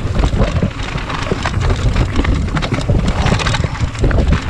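Mountain bike descending a rough, rocky dirt trail at speed: tyres crunching over loose stones, with a rapid stream of clattering knocks and rattles from the bike, under low wind buffeting on the chest-mounted camera's microphone.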